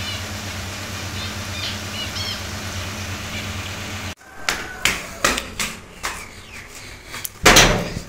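Zebra finches chirping a few short, nasal calls over a steady low hum. After a cut about four seconds in come clicks and knocks, ending in a loud clatter near the end, from a metal door with a barrel bolt being opened.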